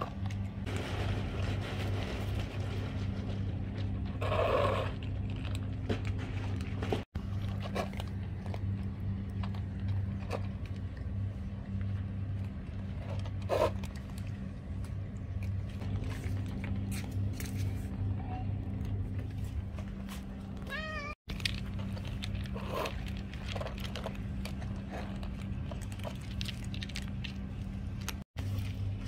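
A domestic cat meowing for food, a few separate calls spread out over a steady low hum.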